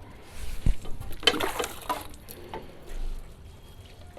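Brush scrubbing the wet condenser coil of a split air conditioner's outdoor unit, a few uneven scraping strokes, as the dust is washed off the coil.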